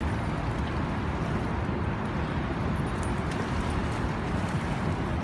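Steady low rumble and rushing noise of wind and water, with no distinct event standing out.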